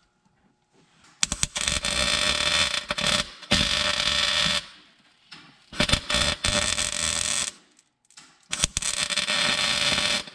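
Electric arc welder crackling and buzzing in several bursts of one to two seconds, with short pauses between them, as a steel rod is tack-welded onto a heater blend-door lever.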